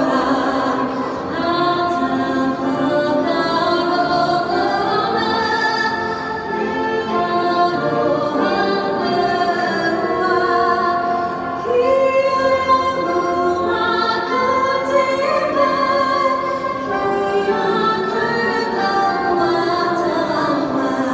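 A woman singing with a choir, long held notes over music.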